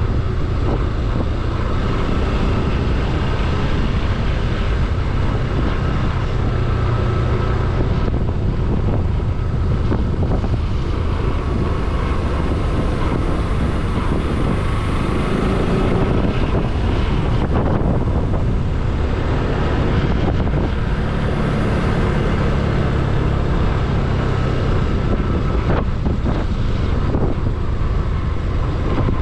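Motorcycle engine running on the move, its note shifting a few times with the throttle, over a steady rush of wind and road noise.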